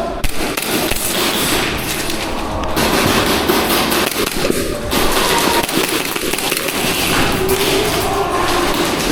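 Airsoft pistols firing in many quick, sharp pops during close-quarters play, with players' voices shouting faintly underneath.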